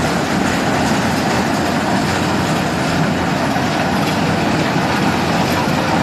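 Rice combine harvester running steadily as it works through ripe rice, its engine and machinery making a constant, even noise.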